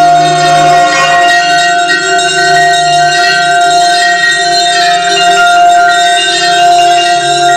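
Vibraphone played with mallets, its metal bars ringing in long, overlapping bell-like notes, over a steady held tone from the piece's pre-recorded tape part.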